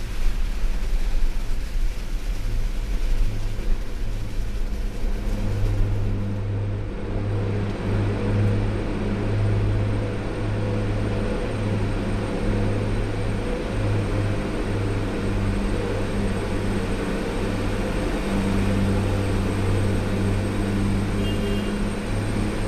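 Vehicle engine running with a steady low hum, heard from inside the cab while driving, with rougher, uneven road noise over the first few seconds.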